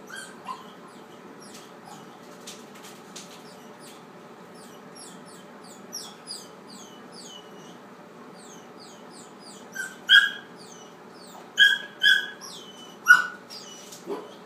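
Australian labradoodle puppy whining: a long run of short, high-pitched whimpers, then several louder, sharper yelps in the last few seconds.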